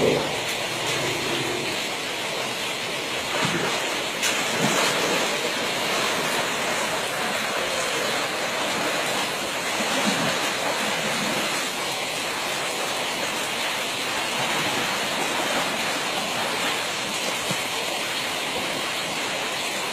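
Muddy water rushing steadily through a narrow ditch, with a few brief louder moments.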